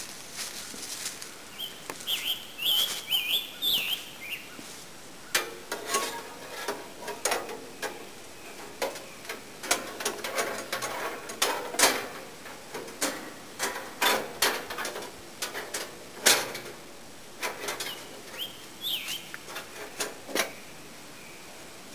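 A steel sawmill band blade for a Wood-Mizer LT15 clicking and clanking in irregular bursts as it is handled and fitted around the mill's blade wheels. A bird chirps about two to four seconds in and again near the end.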